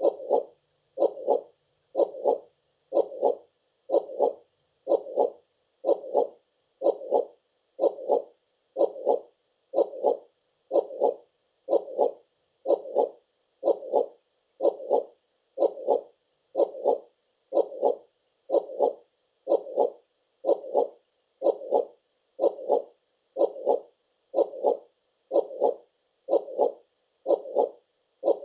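Heartbeat sound: a steady lub-dub double thump repeating about once a second, evenly paced.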